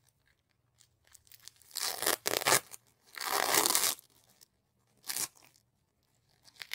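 Plastic wrapper of a U by Kotex CleanWear Regular sanitary pad being pulled open in several tearing rips. The longest and loudest rip lasts about a second, from about three seconds in, with a short one about five seconds in.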